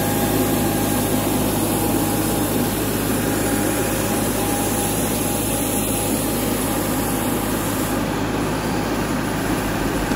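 Steady hum and whine of engines on an airport apron, with a thin high whistle that weakens near the end.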